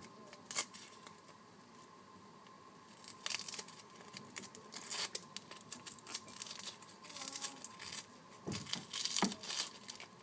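Dry onion skin being peeled off by hand: soft crinkling and tearing in short, irregular rustles, busiest in the second half.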